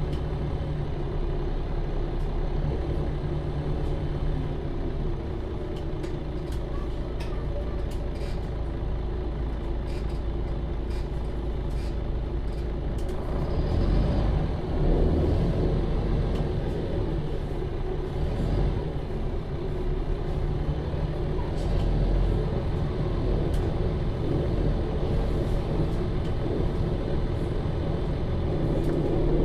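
MAN Lion's City Euro 6 city bus running, its diesel engine droning steadily, with a louder rush of noise about halfway through.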